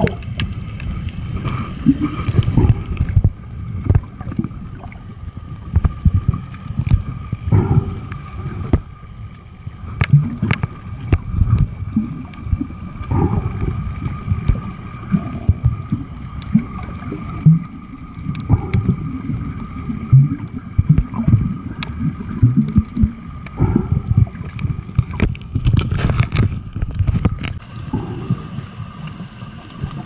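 Underwater sound through a waterproof compact camera: a muffled low rumble of moving water, with irregular surges and knocks and a cluster of sharp crackles about 25 seconds in.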